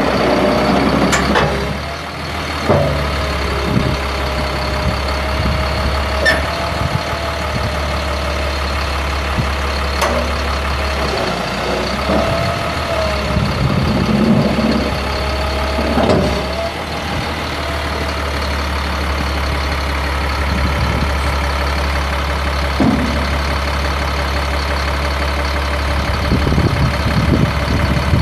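Peterbilt 335 dump truck's Caterpillar C7 inline-six turbo diesel idling steadily, with a whine that wavers in pitch and a few scattered knocks.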